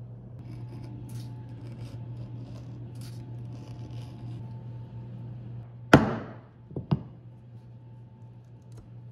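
Edge beveler shaving the edge of a leather sheath blank in a series of short, faint scraping strokes, over a steady low hum. About six seconds in comes a sharp knock, the loudest sound, then two lighter knocks just under a second later.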